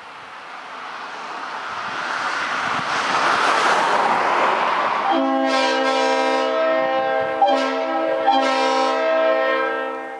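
Five-chime train air horn on compressed air: a rising hiss of rushing air for about five seconds, then the chord sounds suddenly and is held for about five seconds, with two brief catches near the end, before it fades.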